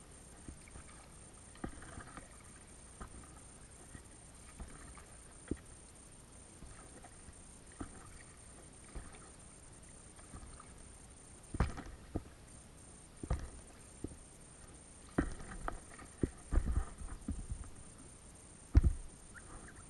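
Paddling an Itiwit x500 inflatable kayak: scattered light knocks and splashes of paddle and water against the hull over a low hiss. They come more often and louder in the second half, with the loudest knock near the end.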